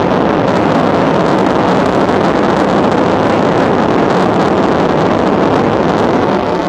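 Boeing 737's CFM56 turbofan engines at take-off thrust during the take-off roll, heard from inside the cabin as a loud, steady rush of noise.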